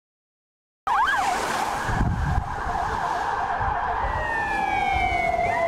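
Emergency vehicle siren cutting in suddenly with a few fast up-and-down yelps, then a long wail sinking steadily in pitch, over a loud rushing noise. Near the end a second rising siren tone begins.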